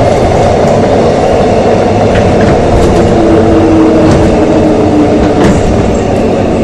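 Korail Line 3 3000-series Mitsubishi GTO-inverter electric multiple unit running along the line, heard from inside the passenger car: a loud, steady rumble of wheels and running gear with a few sharp clicks. A steady hum stands out for a few seconds in the middle.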